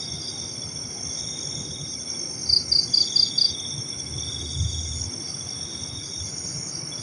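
Night insects, crickets among them, chirring steadily in several overlapping high trills, with a short run of about five louder chirps between two and a half and three and a half seconds in.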